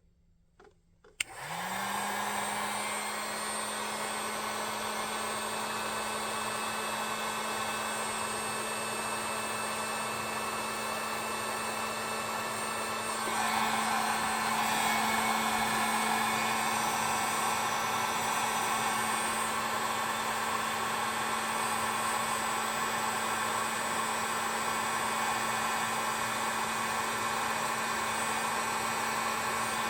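Heat gun switched on with a click about a second in, its fan motor spinning up to a steady hum with a rush of blown air, shrinking heat-shrink connectors onto spliced wires. The air noise grows a little louder about 13 seconds in.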